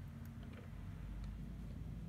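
A few faint clicks of plastic Lego pieces being handled and pressed onto a Lego model, over a low steady hum.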